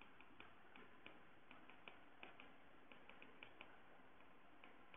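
Faint, unevenly spaced ticks of a stylus tip tapping and sliding on an iPad's glass screen while writing by hand, about three or four a second.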